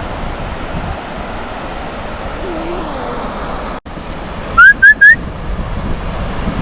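Steady wind and surf on an open beach, with three quick, loud, rising whistles in a row a little past halfway.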